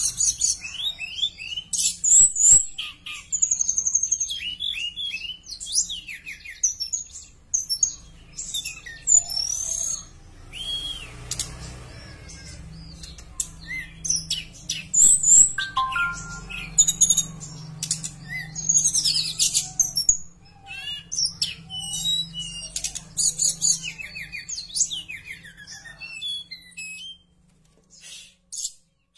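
Blue flycatcher (tledekan) singing a long, varied song of high whistles, chirps and quick trills, which stops shortly before the end.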